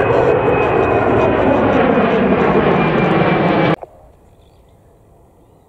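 Twin-engine jet airliner climbing out overhead: loud engine noise with a thin high whine that sinks slightly in pitch. It cuts off suddenly a little under four seconds in, leaving only faint background.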